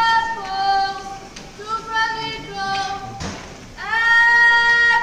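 A girl singing solo in a musical: short held notes with breaks between phrases, then a longer, louder held note near the end.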